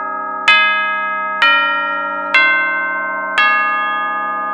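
Clock bell striking midnight: four ringing bell strokes about a second apart, each still sounding when the next one comes.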